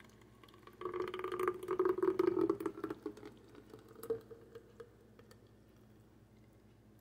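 Thick smoothie glugging out of a blender jar into a plastic water bottle, a pulsing gurgle that lasts about two seconds. A single short knock comes about four seconds in.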